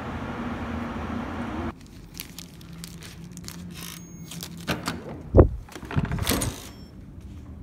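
Street traffic noise cuts off about two seconds in; then a key card in a plastic pouch rustles against an electronic door lock, which gives a short high beep as it unlocks. A loud clunk of the latch follows, then clatter as the door is pushed open.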